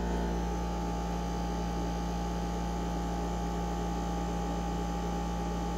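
Dehumidifier running with a steady, really loud hum from its pump, a low drone with a fixed higher tone over it, rumbling the floor.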